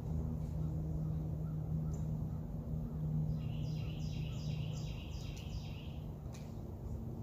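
A bird calling a quick run of about eight repeated, falling high notes in the middle, over a steady low hum of background noise; a faint sharp click comes near the end.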